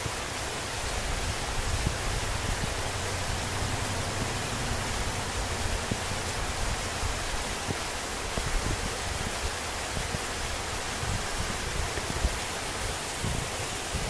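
Steady rush of a creek running over rocks and small falls: an even, unbroken hiss of water.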